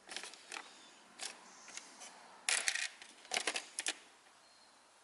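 Small brake-valve parts being handled on the bench: a scatter of light clicks and brief scrapes, sparse at first and clustering into a quick run about halfway through.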